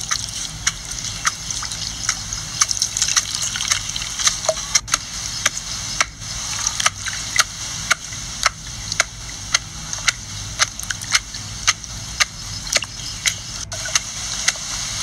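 Wet food being worked by hand: liquid squelching and splashing as grated coconut is squeezed and a marinade is mixed in a metal bowl, with frequent sharp clicks, roughly one or two a second, over a steady hiss.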